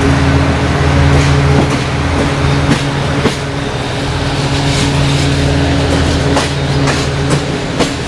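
Train wheels clicking over rail joints at speed, heard from an open window of a moving coach: a steady rush of running noise with a scatter of sharp clicks, more of them near the end. Under it runs a steady low hum from the hauling diesel-hydraulic locomotive.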